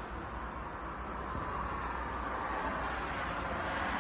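Jet engines of a twin-engine narrow-body airliner on short final approach, a steady rushing roar that grows slowly louder as the aircraft nears, with wind rumbling on the microphone.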